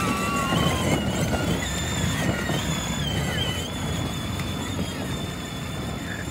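Electric ride-on toy truck (24V) driving on pavement: the drive motors whine at a wavering pitch over the rumble of hard plastic wheels rolling on the path, slowly fading as it moves away.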